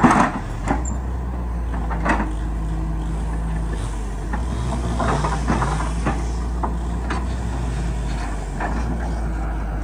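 Excavator's diesel engine running steadily, with scattered knocks and clanks over the drone.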